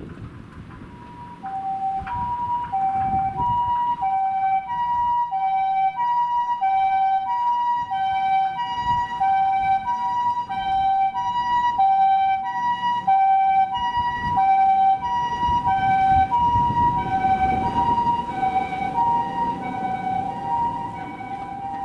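Japanese ambulance's electronic two-tone siren, a high note and a low note alternating evenly with each held for about two-thirds of a second, starting about a second in. A vehicle rumble swells under it about two-thirds of the way through.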